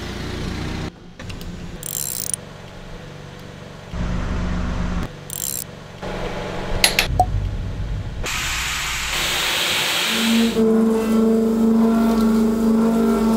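Short bursts of wrench and ratchet clicking and metal clatter as steel workholding vises are bolted down and tightened. About ten seconds in, a CNC machining center starts cutting a block of 4140 steel with a steady whine.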